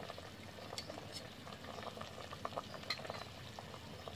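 Chicken and wax gourd curry simmering in an aluminium pot: a faint bubbling with many small scattered pops and a few sharper clicks.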